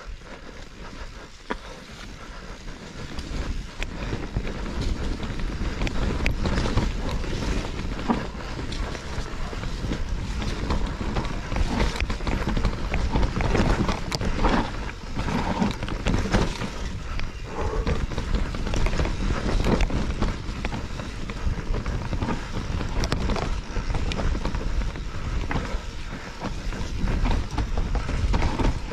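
Mountain bike descending a dirt forest singletrack at speed: wind rushing over the microphone, tyres on dirt and the bike clattering and rattling over roots and bumps, louder after the first few seconds.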